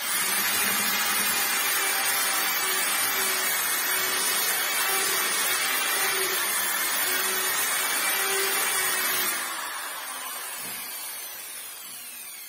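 Corded electric orbital sander with a round sanding disc running against a wooden door, a loud steady whirring hiss. About nine seconds in it is switched off and winds down with a falling whine.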